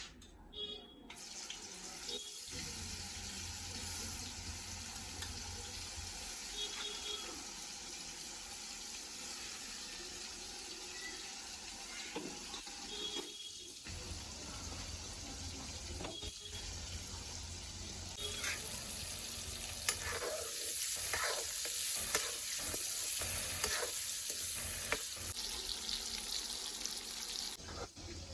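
Food sizzling and frying in a pan, a steady hiss. In the second half there are scattered clicks and scrapes from stirring.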